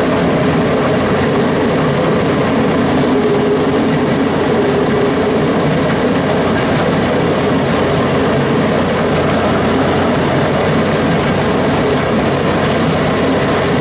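Railway speeders (small motorized track cars) running along the rails, heard from aboard one: a steady, loud mix of engine noise and wheels on the track.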